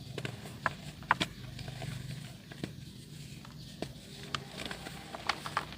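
Soft dirt crumbling with water: irregular crisp crackles and snaps, about a dozen, over a low steady hum.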